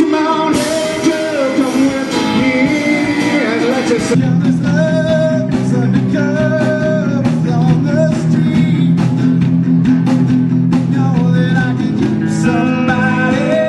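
Live music: a man singing while strumming an acoustic guitar, played through a PA. Fuller, steady chords come in about four seconds in under the voice.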